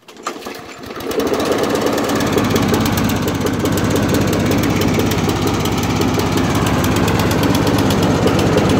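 Briggs & Stratton single-cylinder lawn mower engine starting up and coming up to speed over the first second, then running steadily at full throttle. Its crankcase is overfilled with oil, which is being burned off as white smoke.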